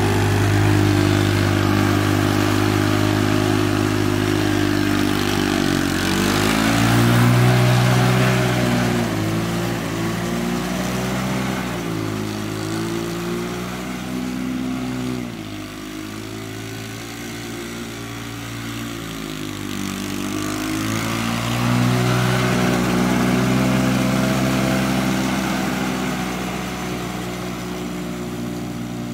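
Small engine of a mini jeep-style vehicle running under way, its pitch rising and falling several times as it speeds up and eases off.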